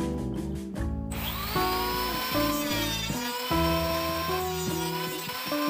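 Electric hand planer, mounted upside down as a jointer, switched on about a second in: its motor whine rises in pitch to speed, then runs steadily. Background music plays throughout.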